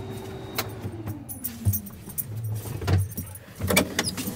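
A motor's steady hum that winds down in pitch over about a second, as if shutting off, with scattered sharp clicks and knocks and a few low thumps.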